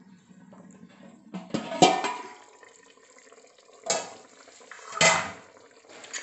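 Stainless steel cooking pot and its lid clanking as the lid is taken off: three sharp metal clanks, about two, four and five seconds in, each with a short ring.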